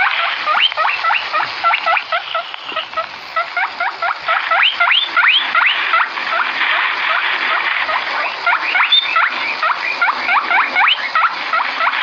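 A chorus of many small animals squeaking: high, overlapping calls, each sliding quickly down in pitch, several a second without pause.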